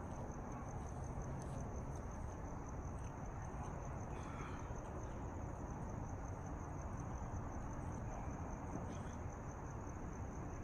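Crickets trilling steadily, a high, rapidly pulsing tone, over an even low background noise.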